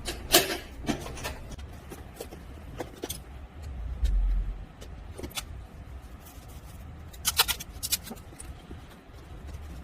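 Scattered sharp clicks and small metal clinks of a bag's metal fittings and hand tools being handled at a workbench. A short low rumble comes about four seconds in, and a quick run of clicks near the end.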